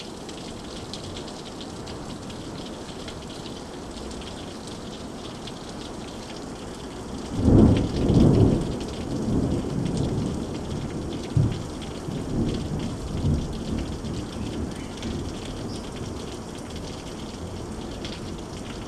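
Steady rain falling in a summer monsoon thunderstorm. About a third of the way in, thunder breaks in suddenly as the loudest sound and rumbles on in several fading rolls, with one sharp clap partway through.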